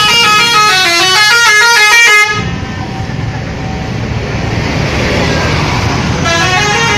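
Indonesian bus 'telolet' multi-tone air horns playing a quick stepped melody, the pitch changing several times a second; it cuts off abruptly about two seconds in, leaving a stretch of traffic noise, and near the end a horn melody starts up again.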